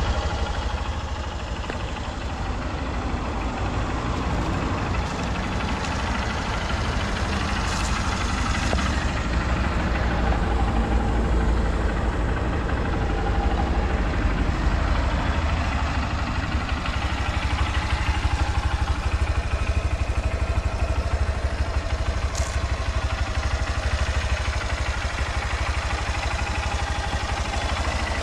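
2010 Honda CBF125's air-cooled single-cylinder four-stroke engine running steadily near idle through its stock exhaust, a little louder in the middle stretch.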